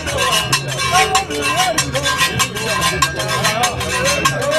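A man singing into a microphone over a plucked gourd-resonator harp-lute, with a quick, even percussive beat of several strokes a second.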